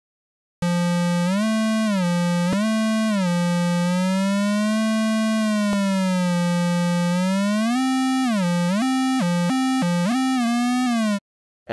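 Sawtooth synth tone from the Phalanx sampler played legato on a MIDI keyboard with portamento: one steady note that glides smoothly up and down between pitches instead of jumping. The glides are slow at first, and the notes change faster near the end.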